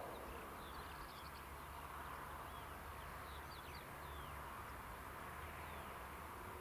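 Faint outdoor ambience with scattered songbird chirps and short trills over a steady low rumble.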